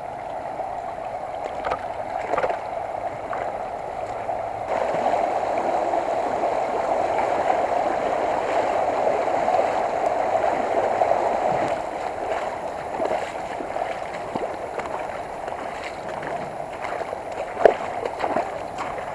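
Creek water rushing over shallow rapids, a steady hiss that grows louder for several seconds in the middle, with a few short sharp knocks near the end.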